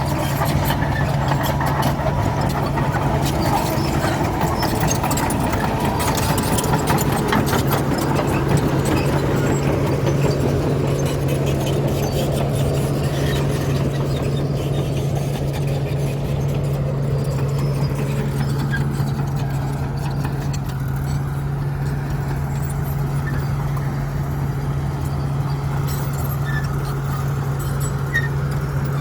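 Heavy diesel earthmoving machinery running steadily with a constant low engine drone. Rattling and clanking runs through the first half and dies away after about twelve seconds.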